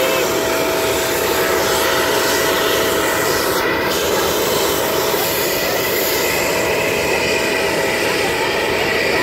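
Steady jet aircraft engine noise across the airport apron, with a thin steady whine that stops about three and a half seconds in.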